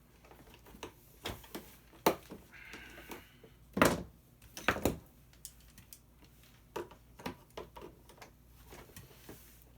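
Irregular clicks and taps of a hand tool against hard plastic as a stubborn screw in a plastic ride-on toy is worked at, with two louder knocks about four and five seconds in.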